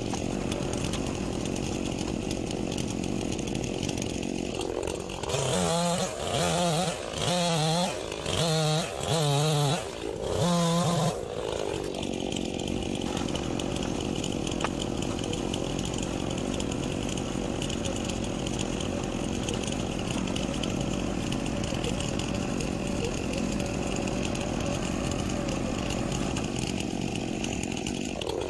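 A small gasoline engine runs steadily. About five seconds in, it surges in roughly five short, louder bursts that waver in pitch and last until about eleven seconds in. These fit the mini skid steer's engine loading up as its hydraulics work the log grapple.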